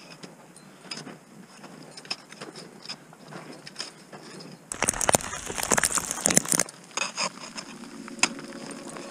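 Climber's crampons and ice axes biting into hard snow: scattered crunching kicks, clicks and scrapes, with a louder stretch of rough crunching and rubbing for about two seconds midway.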